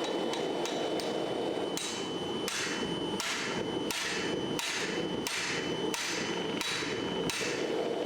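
Hammer blows on steel on an anvil: about nine strikes in an even rhythm, roughly one every two-thirds of a second, beginning about two seconds in, each with a bright ring. A steady rushing noise runs underneath, and a few light clinks come before the hammering.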